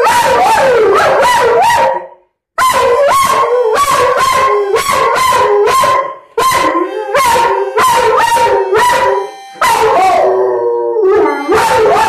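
Huntaway dog howling, a run of drawn-out howls whose pitch wavers up and down, in phrases broken by short pauses about two seconds in, around six seconds in and near ten seconds.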